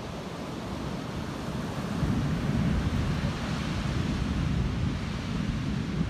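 Ocean surf breaking and washing up the beach, swelling louder about two seconds in and easing off near the end, with wind rumbling on the microphone.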